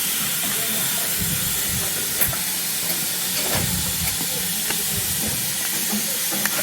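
Standing steam locomotive hissing steadily with escaping steam, with a light clank about two seconds in.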